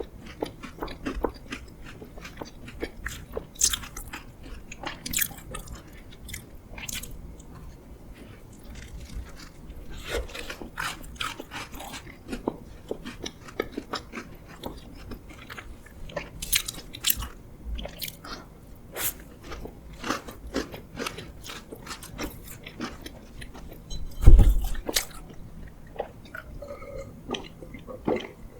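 Close-miked eating: bites and chewing with crisp, crackly mouth sounds. There is a single loud low thump about 24 seconds in.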